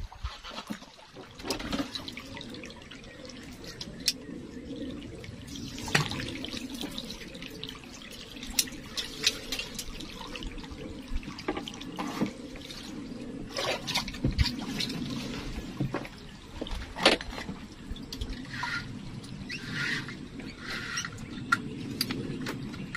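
Water sloshing and trickling close by, with scattered sharp knocks and clicks.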